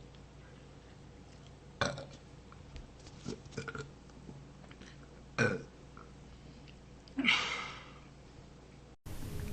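A woman burping: three separate burps a few seconds apart, the last one longer than the others, with a few faint clicks in between.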